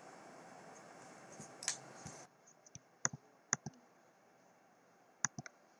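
A handful of short, sharp clicks at irregular intervals, like computer clicks, over a faint steady hiss that cuts out abruptly a little over two seconds in.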